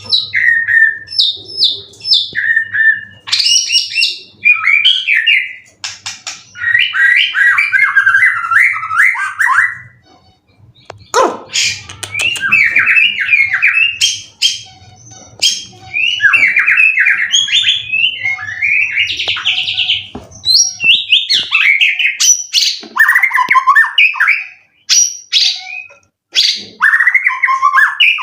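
White-rumped shama (murai batu), a competition songbird in near-peak condition, singing loudly: fast, varied phrases of chattering trills and whistles, with short breaks about ten and twenty-five seconds in.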